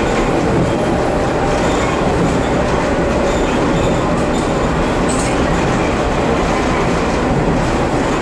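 Inside a KiHa 47 diesel railcar under way: the diesel engine running steadily under the rumble of wheels on the rails.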